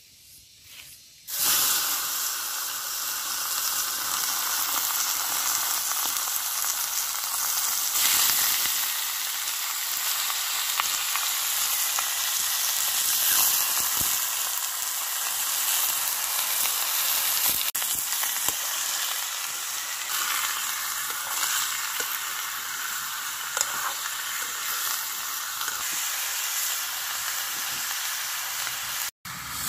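Chunks of skin-on pork frying in a hot wok: a loud, steady sizzle that starts suddenly about a second in.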